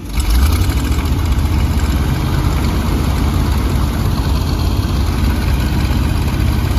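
Truck engine running at a steady idle, low and loud, after its throttle position was adjusted to get it to hold an idle. It comes in abruptly at the start.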